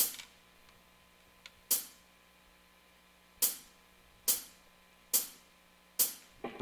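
A drummer's count-in: six single strikes on the hi-hat, the last four evenly spaced, setting the tempo for the song.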